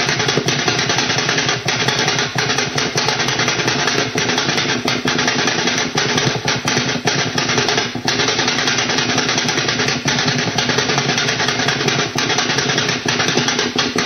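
Pulsed over-the-horizon-radar-like signal, a 'new Russian Woodpecker', heard through a shortwave WebSDR receiver in AM mode around 15.9 MHz. It makes a fast, even train of pops, about ten a second, over steady static, with a few faint steady tones.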